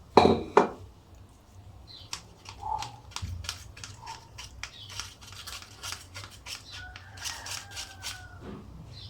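Kitchen utensils handled while lemon juice is strained through a sieve into a salad bowl: a couple of loud knocks just after the start, then a long run of light clicks and scrapes.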